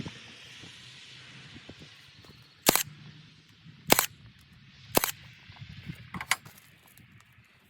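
Sharp, loud knocks on construction material, about a second apart: three single strikes, then two in quick succession near the end, over a fading hiss in the first two seconds.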